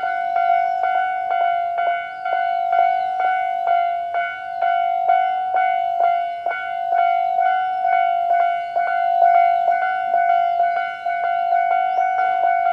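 Japanese railway level-crossing alarms on both sides ringing their standard electronic bell tone: a steady, rapid ding-ding about three strikes a second.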